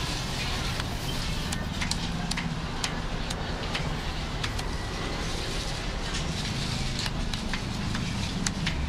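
A cleaver chopping crispy roast pork belly on a thick wooden chopping block, with a series of sharp chops at irregular intervals through the crackling skin. A steady background hum runs underneath.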